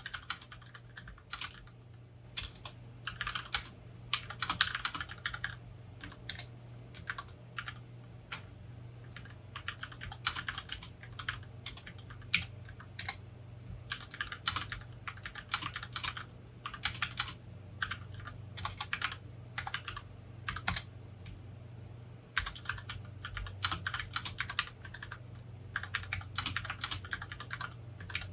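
Typing on a Rakk Lam-Ang Pro mechanical keyboard, quick runs of keystrokes broken by short pauses, as a sound test of its switches.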